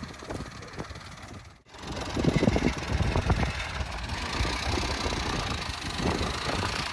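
A small vehicle engine idling steadily. It drops out briefly about a second and a half in, then comes back louder.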